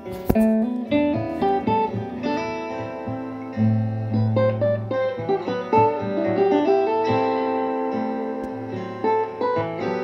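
Plucked-string music, a picked melody of single notes, with a low note held for a while from about three and a half seconds in.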